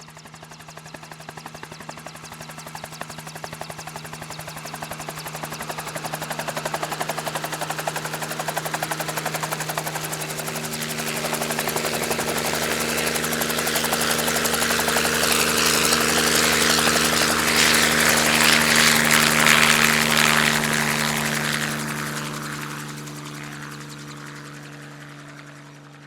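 Helicopter flying by: the rotor chop and engine drone grow steadily louder, peak about three quarters of the way through, then fade as it moves away.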